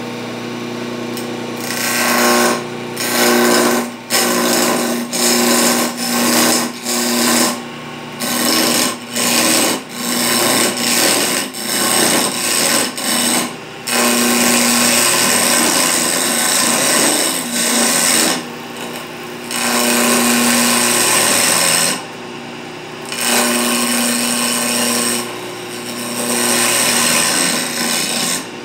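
Electric wood lathe running with a steady motor hum while a hand-held turning tool cuts a square wooden blank round. The cutting comes in many short bursts at first, then in longer continuous passes from about halfway through.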